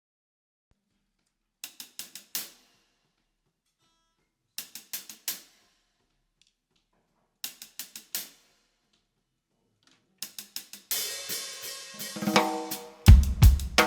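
Live rock band starting a song: short groups of about four quick, sharp drum taps, repeated every three seconds or so, then the full band comes in about eleven seconds in with drums, cymbals and pitched instruments, and a loud low hit near the end.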